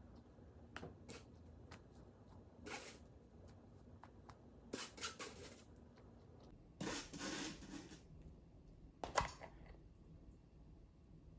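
Kitchen handling sounds during meal prep: scattered light clicks, a few short rustling or scraping bursts of about a second each, and one sharp knock about nine seconds in.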